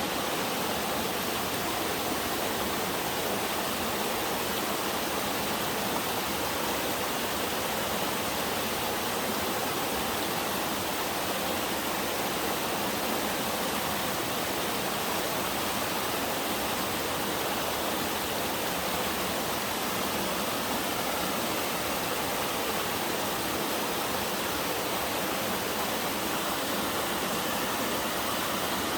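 Three-tiered sliding waterfall, water pouring over sloping rock in a steady, even rush that stays constant throughout, mostly a bright hiss with little low rumble.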